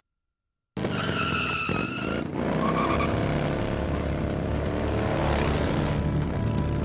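After a moment of silence, a tyre squeal for about a second and a half, then a motorcycle engine running with its pitch rising and falling as it revs.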